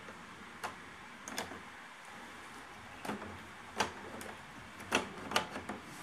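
Faint, irregular light clicks and taps of a screwdriver working screws into the plastic underside of an ILIFE V7s Pro robot vacuum as it is put back together, about six clicks spread over a few seconds.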